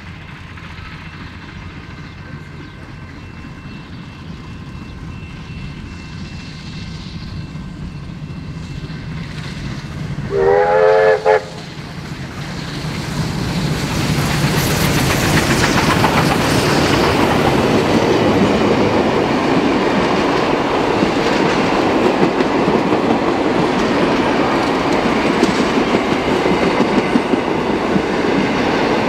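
A steam-hauled heritage train approaching and growing steadily louder. About ten seconds in the locomotive gives one short steam whistle blast of about a second. The train then passes close by, loud and steady.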